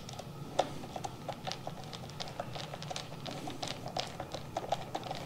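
Screwdriver tightening a motorcycle battery terminal screw: a run of quick, light clicks, about four or five a second, with a sharper click about half a second in.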